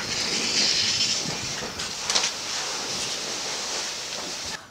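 RNLI all-weather lifeboat launching down its slipway into the harbour and running off across the water: a steady rushing, splashing noise of the hull hitting and cutting through the water, with a sharper splash about two seconds in.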